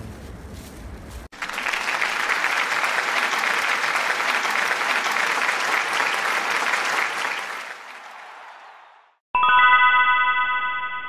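Low wind rumble on the microphone for about a second, then a sudden cut to an applause sound effect that fades out. Near the end a bright chime rings with several steady tones.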